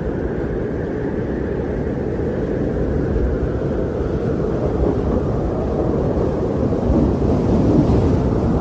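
Wind blowing steadily, a low rushing noise that swells a little near the end.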